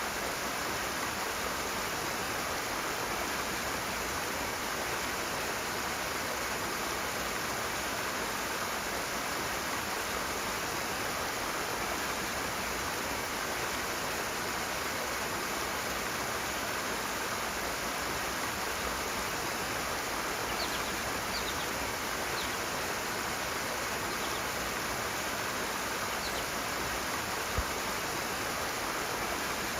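Rushing water running steadily. A few faint, short high chirps come in the second half, and a single brief low thump sounds near the end.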